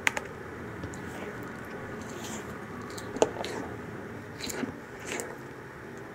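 A spatula folding airy cake batter in a glass bowl: soft squishing strokes with a few sharp clicks of the spatula against the glass, the loudest a little after three seconds in.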